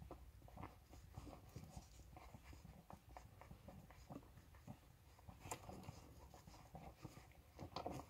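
Faint wet smacking, small irregular clicks and soft rustling from newborn puppies suckling at their mother's teats, with a sharper click about five and a half seconds in.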